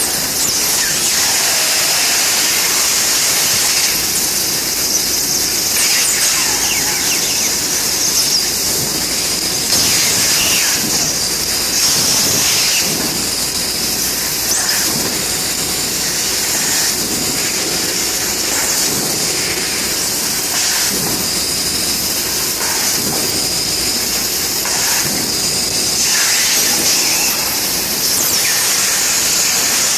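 Bystronic CNC laser cutting machine running, with a steady high hiss and repeated squeals that rise and fall in pitch.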